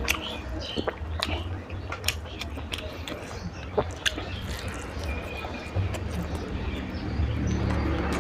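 Close-miked chewing and lip smacking of a person eating curry and rice, with sharp wet clicks scattered irregularly over a low rumble.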